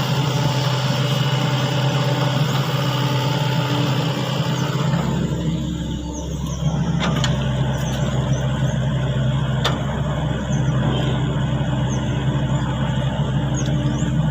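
Excavator engine running steadily with a loud low hum, a deeper rumble joining about five seconds in, and a few sharp clicks.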